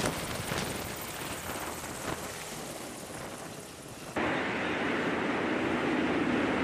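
Navy Seahawk helicopter rotor and turbine noise, growing fainter as it climbs away. About four seconds in, it cuts abruptly to a louder, steady machinery noise in a hangar bay with forklifts running.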